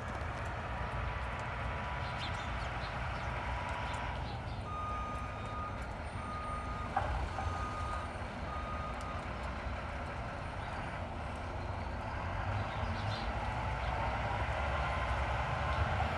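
Garbage truck running with a steady low rumble, its reversing alarm sounding four short beeps about a second apart around the middle.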